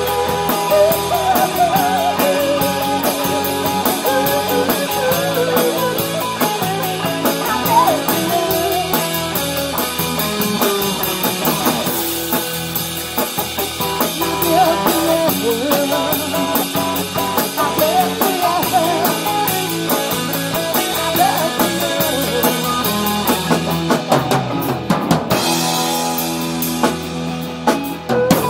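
A live rock band plays: electric guitar and acoustic guitar over a steady drum-kit beat.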